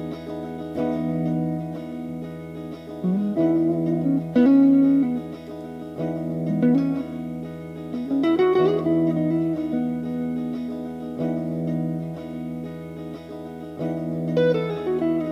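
1978 Fernandes FST-50 Stratocaster-style electric guitar being played: sustained chords with lead notes bent up and down in pitch.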